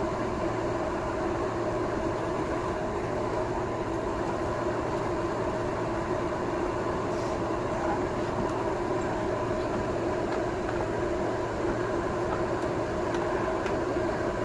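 A steady mechanical hum with a few constant tones, unchanging throughout, with a few faint high clicks over it.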